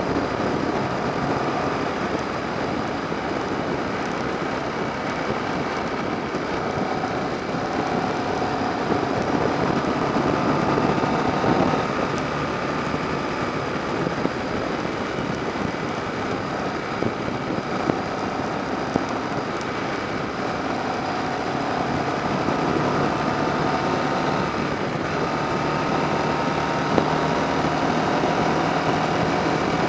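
Yamaha XV750's air-cooled V-twin engine running steadily under way, buried in heavy wind and road noise on a bike-mounted camera. Its pitch drifts gently up and down with the throttle.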